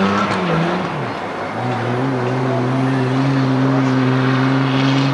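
Off-road 4x4's engine under load, climbing a steep dirt hill. Its note drops just under a second in, then holds steady at a lower pitch.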